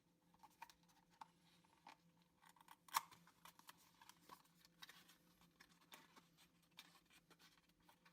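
Faint clicks and light rustling of a small cardboard propeller box being opened and handled, with one sharper click about three seconds in.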